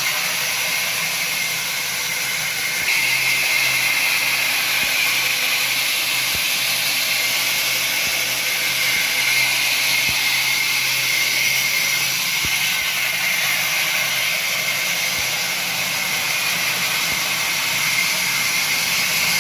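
Woodworking cutting machine running steadily with a constant high hiss, stepping up slightly in level about three seconds in.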